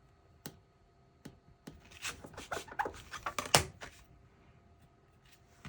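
Pencil marking on paper or cardstock: a few light taps, then a quick run of scratchy strokes about two seconds in.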